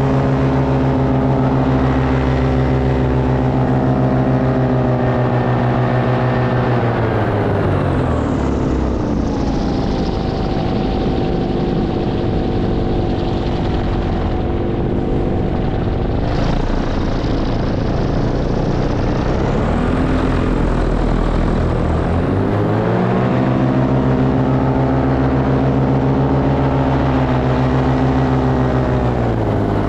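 Paramotor engine and propeller running at a steady throttle, then throttled back about seven seconds in, its pitch falling to a lower running note under a rushing noise. About twenty seconds in it is throttled up again and the pitch climbs back to the earlier steady note.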